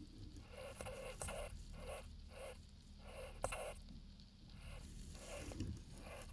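A jerboa making a series of short sounds, about two to three a second, with a sharp click about three and a half seconds in.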